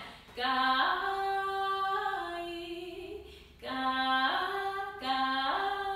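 A woman sings unaccompanied, demonstrating a deliberate voice break: short sung phrases that start low in chest voice and flip abruptly up in pitch into falsetto, three times.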